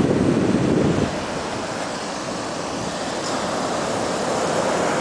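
Atlantic surf crashing and washing up the beach, with wind on the microphone. The low rush is heaviest in the first second, then settles to a steady wash.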